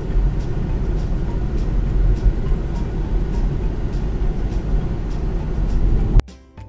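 Steady low rumble of road and tyre noise inside a moving car's cabin. Just after six seconds in it cuts off suddenly and gives way to quiet music.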